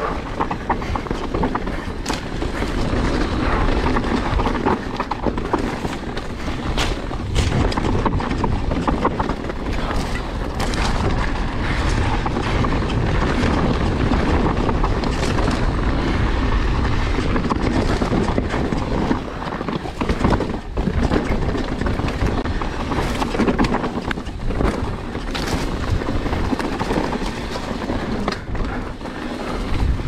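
Full-suspension mountain bike descending a rough dirt trail: a continuous noise of tyres rolling over dirt, rocks and leaf litter, broken by frequent knocks and clatters from the bike as the suspension takes the bumps.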